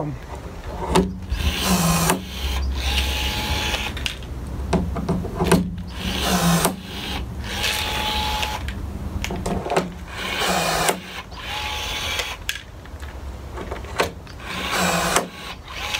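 Milwaukee M12 cordless rivet gun setting 4.8 mm pop rivets through an aluminium skin one after another: its motor whirs in repeated short runs, with sharp clicks between them, about one rivet every four seconds.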